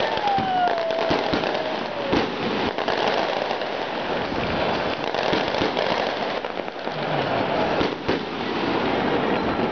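Fireworks going off: a dense, continuous crackle of firecrackers and bursting shells, scattered with sharper bangs. Over the first two seconds a whistle falls in pitch.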